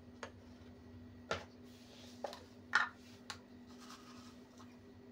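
A handful of light clicks and taps from kitchen utensils being handled, about six spread unevenly over five seconds, over a steady low hum.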